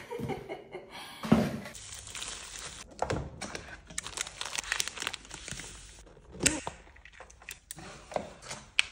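Packaging being unwrapped by hand: crinkling and tearing, with scattered clicks and a knock about a second in.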